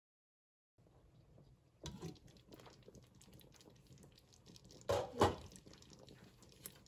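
Thick kare-kare peanut sauce simmering in a pot with eggplant and string beans, faintly bubbling with many small pops, starting about a second in. Two louder pops come close together about five seconds in.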